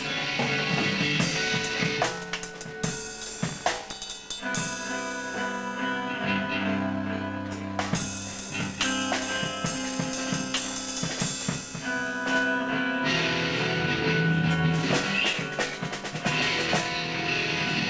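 Drum kit and electric guitar playing together: sharp drum and cymbal hits over held guitar notes and chords.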